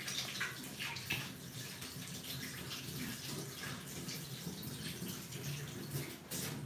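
Water running steadily from a tap into a sink, with a few light clicks and knocks.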